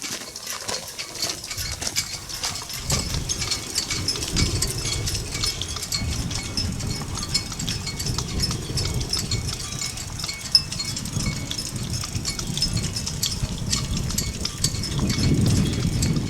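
Footsteps walking on a path, a steady run of crisp steps, with wind rumbling on the microphone that gets stronger near the end.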